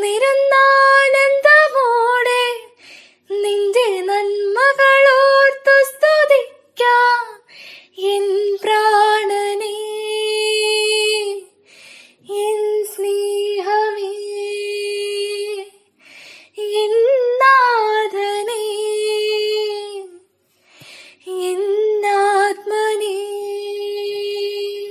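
A solo female voice singing unaccompanied, in phrases of long held notes with short pauses between them.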